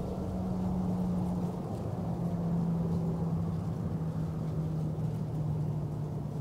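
Jet engine noise of a Boeing 777-200 landing: a steady rush with a low hum that slowly falls in pitch.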